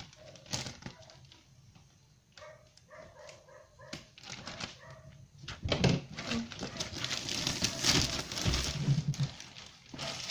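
Plastic shrink wrap crinkling and rustling as it is pulled off a cardboard laptop box, starting a little past halfway and continuing to the end. Before it come a few faint, short whining sounds.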